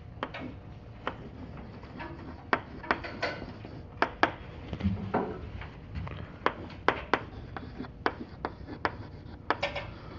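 Chalk writing on a blackboard: irregular sharp taps and short scratches as letters are written, over a low room hum.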